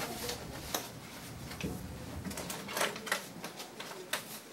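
A few scattered light clicks and taps, as of small objects being handled, over a low background hum.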